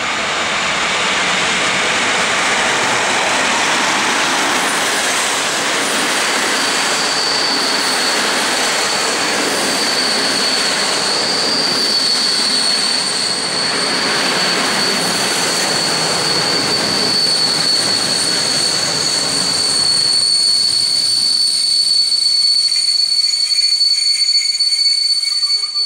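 EP07 electric locomotive and its passenger coaches rolling into the station along the platform, wheels running over the rail joints. From about six seconds in a high, steady brake squeal joins and holds as the train slows to a stop.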